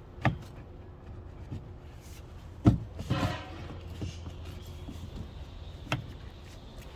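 A car's exterior door handle being worked loose from the door: a few sharp knocks, the loudest a little under three seconds in, followed at once by a brief scrape.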